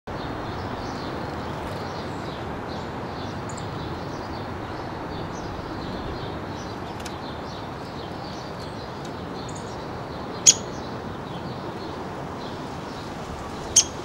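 Female downy woodpecker giving two short, sharp, high peeps about three seconds apart, calls at her roosting nest box entrance before going in for the night. Over a steady background hiss.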